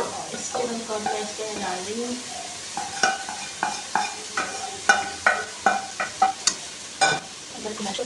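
Metal spatula scraping and tapping a wok as it is emptied into a pot of macaroni: squeaky scraping for the first couple of seconds, then a run of sharp, ringing taps about two or three a second, stopping about a second before the end.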